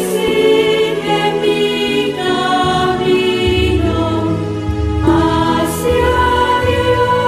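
Devotional Catholic song to the Virgin Mary: choir voices holding long notes over music, with a deep bass coming in about three and a half seconds in.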